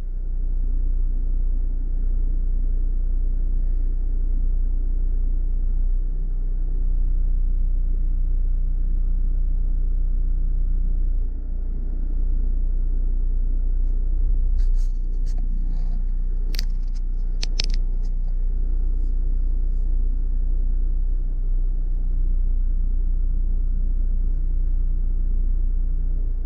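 Car engine running steadily, heard from inside the cabin as a low, even rumble. A few sharp clicks come about halfway through.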